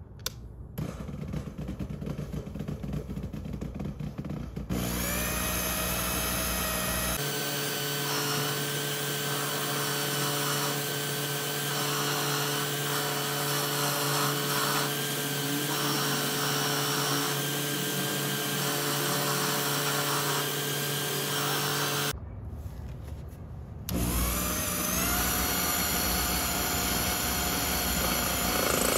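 Craftsman (Sherline) micro lathe running under power with a steady whine of several tones and a regular pulsing. Its motor spins up with a rising pitch about five seconds in. The sound drops away abruptly about two-thirds of the way through, then spins up again with a rising whine.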